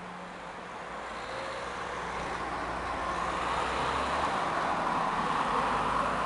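A van and then a car driving past close by on a city street, their tyre and engine noise building steadily to a peak near the end.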